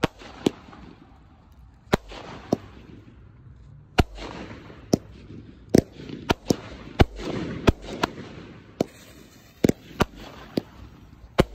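Aerial fireworks going off in a finale barrage: about twenty sharp bangs at uneven spacing, coming thicker from about four seconds in, with a steady noise between them.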